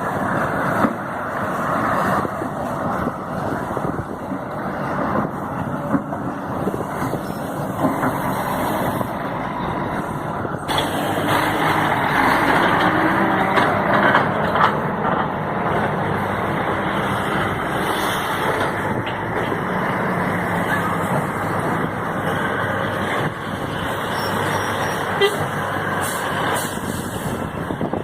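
Heavy diesel machine engine running steadily, with the sound changing abruptly about a third of the way through, getting fuller and brighter.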